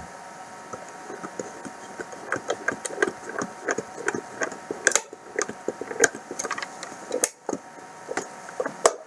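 Small screwdriver driving a tiny screw into a PA7 cashbox, giving a string of irregular clicks and creaks as the screw cuts its own new threads. The clicks start about a second in and come thicker from about two seconds on, with a sharp click near the end.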